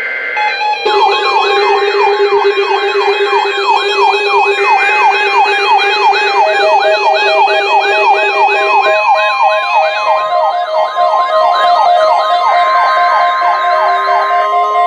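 Several electronic sirens and alert tones sounding together: a fast wailing sweep repeating two to three times a second over steady tones, with a long steady beep joining about ten seconds in.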